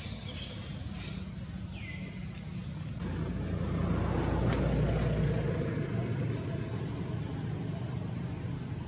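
A motor vehicle passing by: a low rumble that swells about three seconds in, peaks near the middle, then eases back to a steady low rumble.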